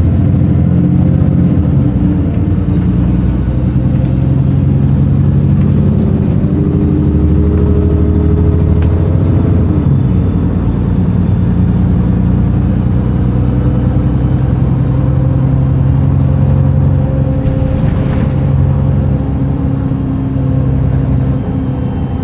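VDL DB300 double-decker bus running under way with a horrid grumbling noise, the engine note changing pitch a couple of times as it pulls. A brief hiss sounds late on.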